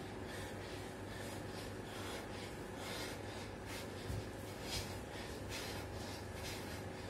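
A man's heavy, rhythmic breathing during burpee push-ups, short hard breaths about one to two a second. Bare feet thump softly on the tile floor twice, about four and five seconds in, as he jumps his legs in and out of the plank.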